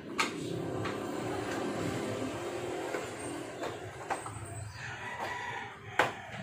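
A rooster crowing, one long call lasting a few seconds, with sharp clicks as the plastic fairing of the motorcycle is handled; the loudest click comes near the end.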